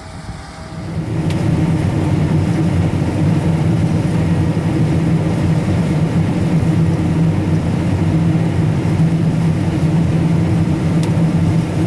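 Combine harvester's engine running steadily under load, coming up loud about a second in.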